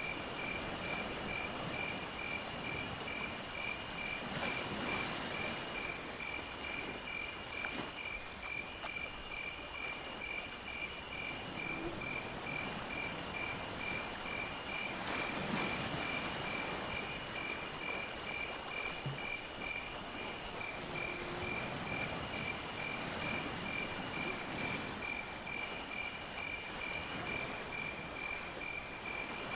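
Insect chorus: crickets trilling in steady, even pulses, with a higher-pitched insect buzzing in repeated bursts of about a second, and a few short ticks now and then.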